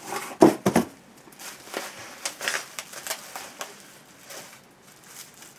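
A cardboard box being opened and handled: a few sharp knocks of cardboard about half a second in, then soft rustling and crinkling of the packaging as a padded package is lifted out.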